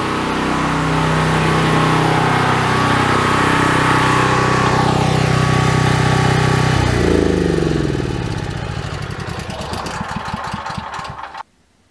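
5500-watt Cat portable generator's engine running steadily, then switched off about seven seconds in: it winds down, its pitch falling and its beat slowing until it stops shortly before the end.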